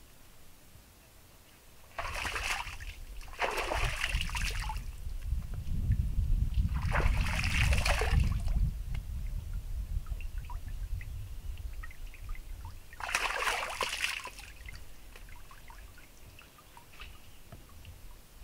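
Water being scooped by hand from a pond and splashed onto a face, in four short bursts of splashing and trickling over a low rumble.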